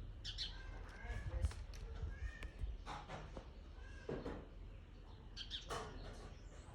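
Short animal chirping calls, several brief ones scattered through, among a few sharp rustling noises over a steady low wind-like rumble.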